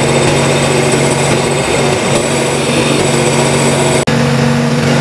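Metal lathe running while it turns a steel truck trunnion shaft: a steady machine hum with several held tones, cutting out for an instant about four seconds in.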